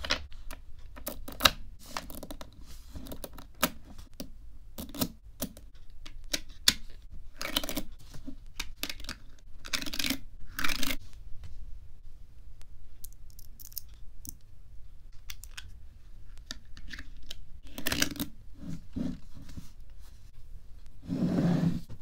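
Small magnet balls clicking and clacking against each other as they snap together into rings and a hexagonal sheet. There are scattered single clicks and short clusters, and a longer rattle near the end.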